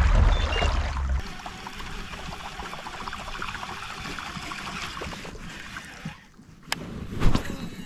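Water trickling and gurgling with small splashes, with a low wind rumble on the microphone in the first second and a sharp knock near the end.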